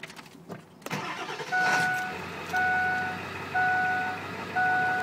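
2002 Ford F-250's 7.3-litre Powerstroke V8 diesel starting about a second in, then settling to idle. Over it the cab's dashboard warning chime beeps about once a second and is louder than the engine.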